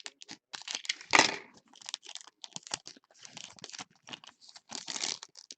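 Trading cards being handled and flipped through, a quick irregular run of clicks and rustles, with the loudest rustle about a second in.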